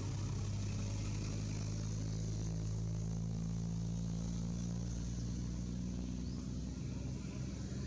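An engine running steadily at low speed: a low hum whose pitch drifts slightly, with a steady high hiss above it.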